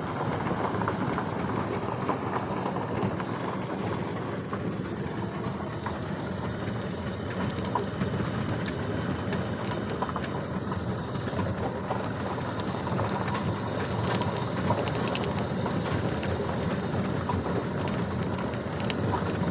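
Car driving on a gravel road, heard from inside the cabin: steady tyre and engine noise with scattered small ticks and crunches of gravel under the tyres.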